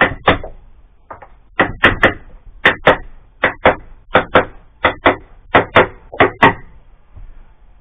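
Sharp knocks struck against a wall panel to seat it in place: about seventeen in all, mostly in quick pairs, a pair every second or less.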